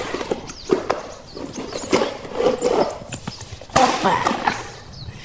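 Toy vehicles being handled, with a series of sharp knocks and clacks as they are picked up and set down.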